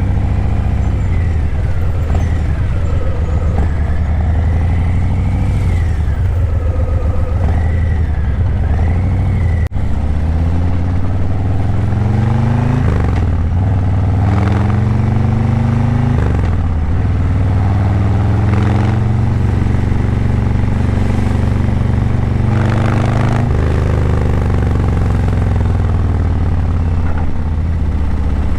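Harley-Davidson Breakout 117's Milwaukee-Eight 117 V-twin through Vance & Hines Eliminator 300 slip-on mufflers, running steadily at low speed for about the first ten seconds with a wavering high tone above it. It then accelerates through the gears, its pitch climbing and dropping sharply at each upshift, several times over.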